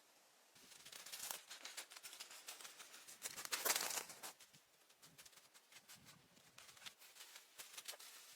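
Rustling and scraping handling sounds with scattered sharp clicks, loudest in a second-long stretch of scratchy noise about three and a half seconds in.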